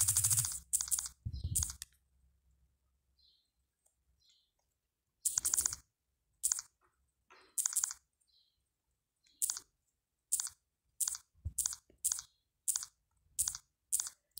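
Fingertip taps and clicks on a smartphone touchscreen, a dozen or so short separate ones with quiet gaps between, coming quicker near the end.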